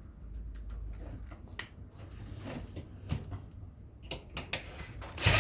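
Light clicks and taps of parts and sheet metal being handled on a workbench, with a few sharper knocks about four seconds in. A power drill starts running just before the end.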